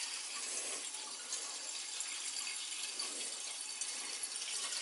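Water running in a steady rush as a hydronic heating zone is flushed with fresh water through its purge valve and hose, clearing out the old acidic antifreeze.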